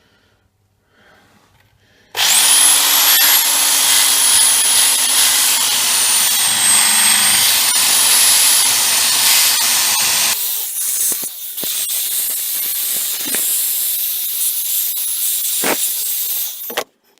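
A power tool motor starts with a rising whine and runs at high speed, loud and noisy as it works steel. About eight seconds later it changes abruptly to a quieter, rougher running with a few sharp clicks, then stops suddenly.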